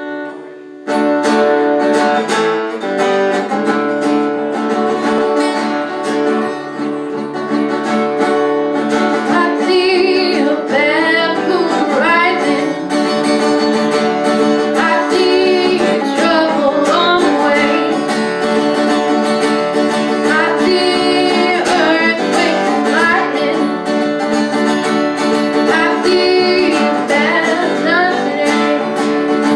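Live folk music: guitar playing, with singing joining about ten seconds in.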